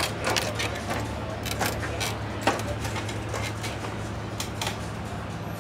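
Footsteps and knocks climbing a boarding ladder and stepping onto a yacht's teak deck: irregular sharp clicks, the loudest about two and a half seconds in, over a steady low hum.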